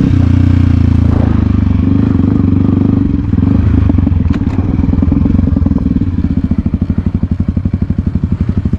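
Dirt bike engine running at low, steady revs while the bike rolls along a dirt track, its firing pulses loud and even; near the end it settles into a slower chug.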